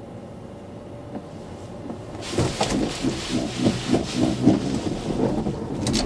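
Heard from inside a car's cabin: a low steady engine and road hum. About two seconds in, water from the skid-pan sprinklers and the wet surface starts pelting the windscreen and body in a loud, dense, irregular drumming as the car skids across the wet plate.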